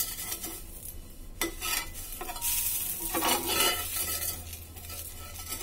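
Rice-flour ghavne crepe sizzling on a hot cast-iron pan, its underside cooked and ready to turn. The hiss swells louder around the middle and eases off toward the end.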